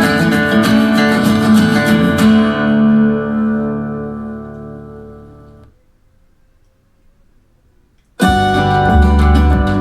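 Guitar music played through a TCL S642W 2.1 soundbar: the track fades out to near silence about halfway through, and after a pause of a couple of seconds a new guitar track starts suddenly with heavy bass.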